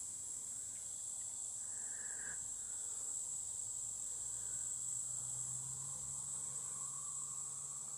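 A steady, high-pitched insect chorus trilling without a break, the daytime background of a summer garden.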